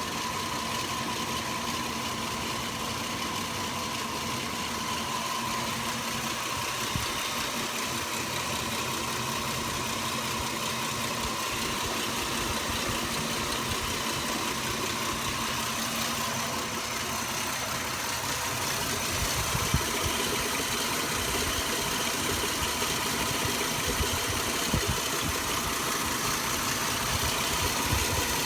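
Vehicle engine idling steadily, with a steady high tone running under it and a few light clicks in the second half.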